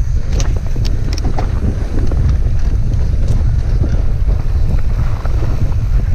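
Heavy wind buffeting on the camera microphone as a mountain bike rolls fast down a dirt trail, with scattered sharp clicks and rattles from the bike over bumps.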